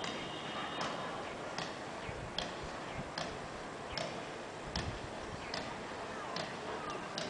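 Sharp, evenly spaced ticks, about one every 0.8 seconds, like a clock or metronome, over a steady background hiss.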